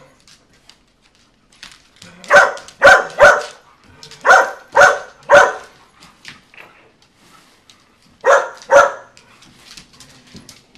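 Dogs giving sharp play barks while wrestling and chasing, eight barks in quick groups of three, three and two.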